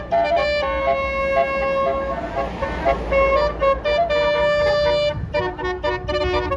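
Bus telolet horn, a Basuri multi-note air horn, playing a tune of stepped notes. Quick notes come at the start and near the end, with one long held note early on, over the low rumble of the bus engine. A short rush of noise comes near the middle.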